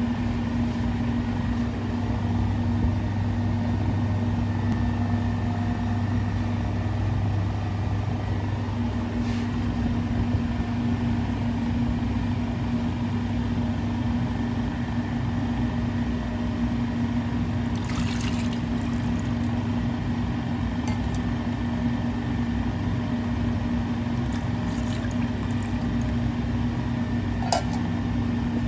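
Steady low machine hum of kitchen equipment throughout. In the second half, liquid (mirin and sake) is poured briefly a few times from stainless-steel bowls into an aluminium saucepan, and a light metal clink comes near the end.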